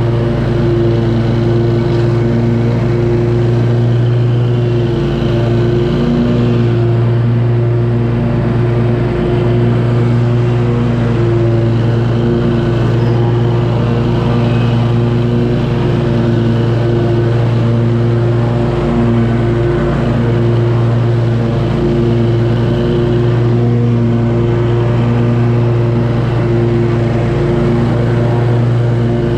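2018 Scag V-Ride II stand-on zero-turn mower running steadily while cutting grass, its engine and deck holding one even pitch throughout.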